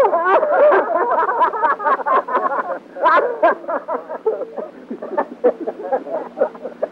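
A man crying out in pain as his tooth is yanked out, with other men laughing around him. The wordless yelling and laughter start suddenly and keep going in quick, broken bursts.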